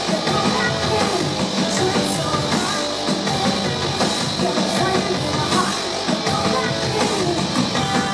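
Loud live noise-pop rock: distorted guitar and a heavy drum beat with a woman singing, heard at full concert volume.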